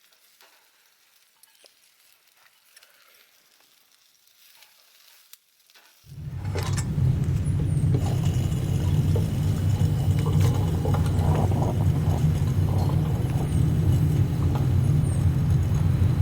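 Near silence with a few faint clicks, then about six seconds in a loud, steady sizzle sets in, with crackling over a strong low rumble: food frying over a camp flame.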